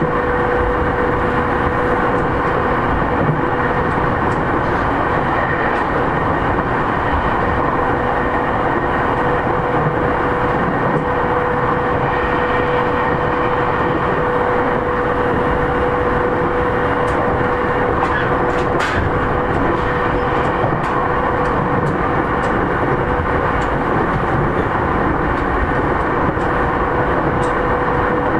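JR East E231 series 3000 electric train heard from inside the car, running at steady speed. A continuous rumble of wheels on rail lies under a steady hum, with a few faint clicks.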